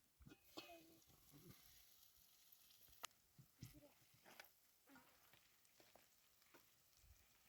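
Faint sizzling with scattered light ticks and crackles, as of food cooking over a fire.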